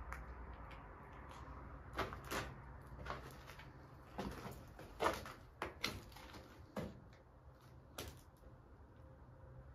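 A scattered series of short knocks and clicks, about eight over several seconds, the loudest about five seconds in.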